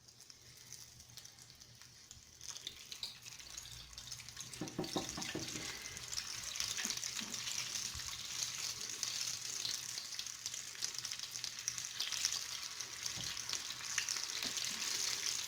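Falafel balls sizzling and crackling in a small pot of hot frying oil. The sizzle starts about two seconds in and grows louder as more balls go in.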